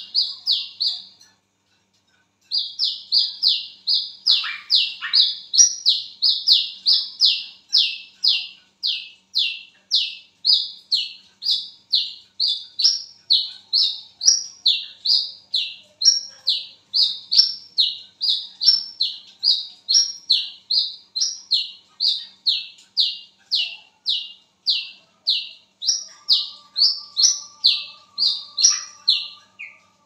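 Brown-throated sunbird (wiceh, kolibri kelapa) calling loudly: a long run of sharp, high, falling notes, about two a second. There is a short break about a second in, then it calls without stopping.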